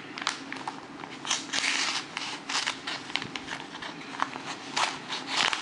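Spyderco Cricket folding knife blade slitting open a paper envelope: a run of short scratchy cutting and crinkling strokes, with a couple of longer tearing swishes.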